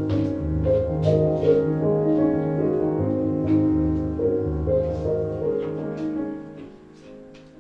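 Instrumental music led by piano, playing a slow melody of held notes that fades down near the end.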